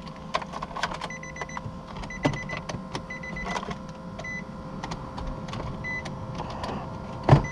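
Nissan Versa's dashboard warning chime beeping in short repeated runs with the key in the ignition, over clicks and clatter of the shifter and loose plastic console trim being handled, with a louder knock near the end.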